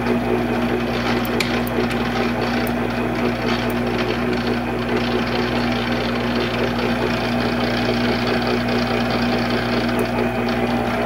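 Monarch 10EE lathe running steadily: a constant hum with a busy mechanical rattle over it, the gear-train noise the owner still hears and traces to the upper part of the machine.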